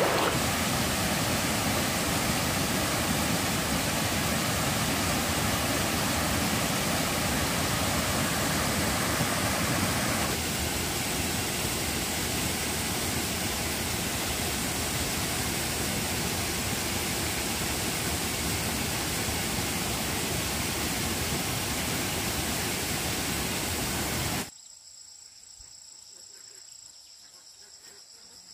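Steady rushing of stream water, changing slightly about ten seconds in. Near the end it cuts abruptly to a much quieter background of insects chirping, crickets.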